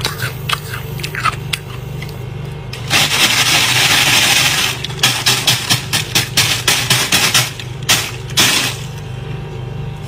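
Fingers scraping and crunching thick, flaky frost on the inside of a freezer. There are scattered light crackles at first, a long continuous scrape about three seconds in, then a quick run of crunchy scratches, about three a second, over a steady low hum.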